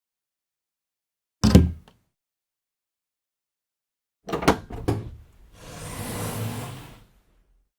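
A door shutting with a single thump about a second and a half in. A few seconds later the handle and latch click several times, followed by a rising and falling rush of noise as the door swings open.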